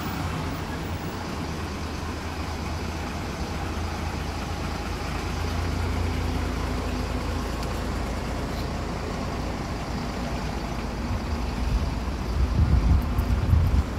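Steady low rumble of road traffic, swelling unevenly near the end.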